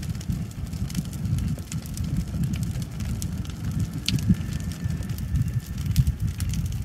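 A burning brush pile of dry tree limbs crackling and popping with irregular sharp snaps, over a steady low rumble.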